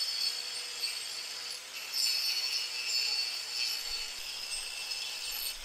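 Angle grinder with a Rockmount hard wheel made for aluminum grinding down weld buildup on a cast aluminum cylinder head: a steady, high-pitched grinding with a short dip about one and a half seconds in.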